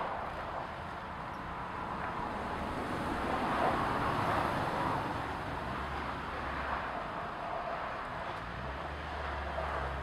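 Distant road traffic: a steady rumble and tyre hiss that swells to its loudest about three to four seconds in and then eases off, with a low engine drone underneath near the end.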